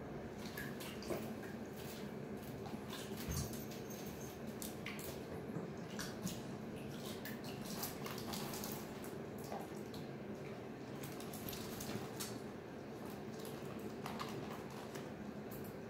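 Water splashing and dripping as a mink dives into a small glass fish tank after goldfish and climbs back out, with scattered sharp ticks and drips over a steady low hum.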